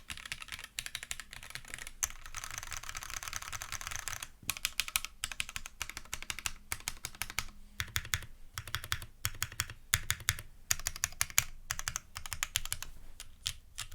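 Custom Glare TKL mechanical keyboard (top-mounted aluminium plate, lubed Cherry retooled Black linear switches, GMK keycaps) being typed on. A fast, dense run of keystrokes for the first four seconds or so, then slower, separate keystrokes, some with a deeper thud.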